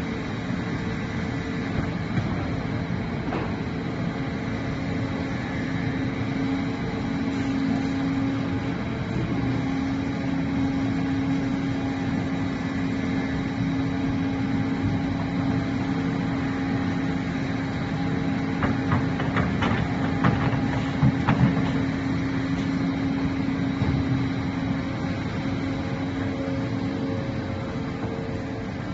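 Crawler excavator's engine running steadily with a constant drone, with a short run of clanks and knocks about two-thirds of the way through.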